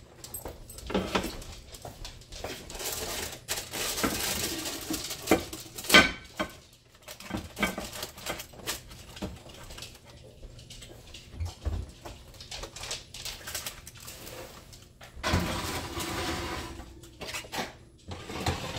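Cookware knocking and clinking irregularly as a lidded ceramic baker and a glass baking dish are handled with oven mitts and slid into the oven.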